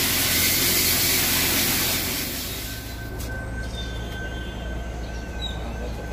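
A loud steady hiss stops abruptly about two and a half seconds in, leaving the low steady rumble of the Volvo FM440 dump truck running, with a faint steady high whine over it.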